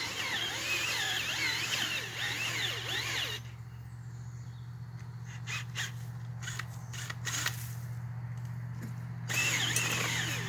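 18-volt Ryobi cordless drill turning a homemade saw-blade auger into moist soil. The motor hums steadily throughout, under a scraping, grinding layer that drops away suddenly for several seconds in the middle and comes back near the end.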